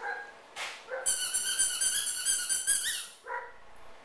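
A puppy gives short yips, and from about a second in there is a high, wavering squeal lasting some two seconds.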